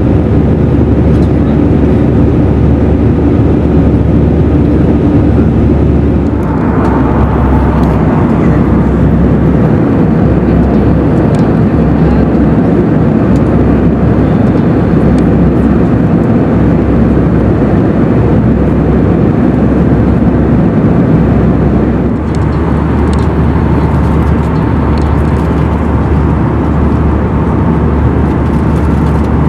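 Airbus A320 cabin noise in flight: the steady, loud roar of the jet engines and rushing air, heard from a window seat over the wing. Its tone shifts slightly about six seconds in and again about 22 seconds in.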